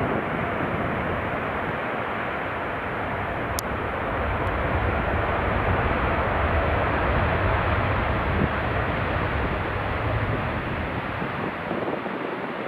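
Boeing 787-9 airliner with GEnx-1B turbofan engines rolling along the runway: a steady jet roar with a deep rumble underneath, swelling slightly in the middle and easing near the end.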